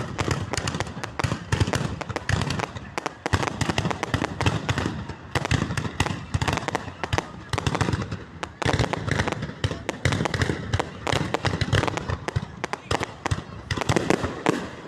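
Fireworks going off in quick succession: a dense, continuous crackle of sharp bangs and pops, thinning out briefly about six and eight seconds in.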